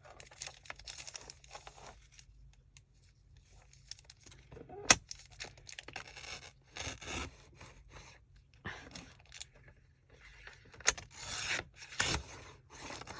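Paper being handled: slid, rubbed and creased along a fold, in a string of short rustling scrapes. A sharp tap about five seconds in, and another near eleven seconds.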